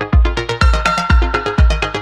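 Background electronic music with a steady kick-drum beat, about two beats a second, under a synth melody.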